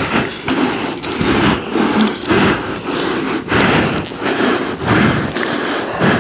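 Scuffling on a rug during a struggle: clothing and tactical vests and gear rustling and rubbing in irregular bursts, with no words.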